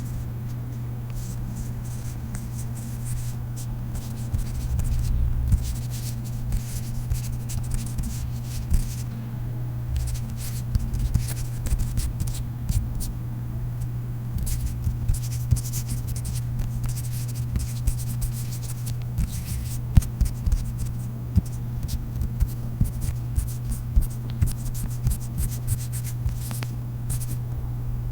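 Hands rubbing, brushing and tapping, giving an irregular stream of scratchy rustles and small clicks over a steady low hum.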